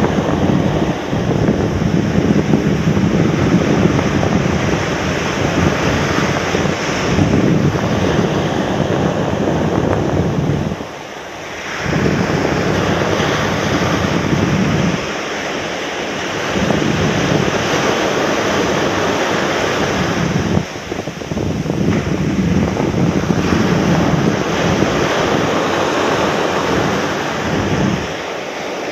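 Surf breaking and washing up a sandy beach, with strong wind buffeting the microphone in a low rumble. The rumble drops away briefly three times.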